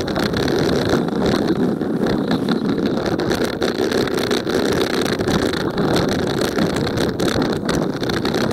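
Toyota Tacoma pickup driving on a dirt road, heard from a camera mounted outside the truck: a steady rumble of engine and tyres on dirt with wind on the microphone, and many small clicks and knocks throughout.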